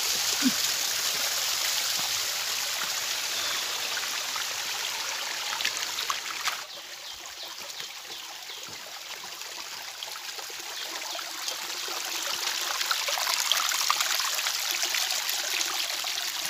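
Water of a small stream trickling and splashing over rocks, a steady hiss. It drops suddenly about six and a half seconds in and grows louder again near the end.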